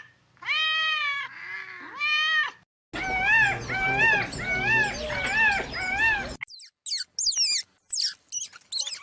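A cat meowing twice, followed by a run of five short, evenly repeated calls, then a series of high, thin squeaks that fall quickly in pitch.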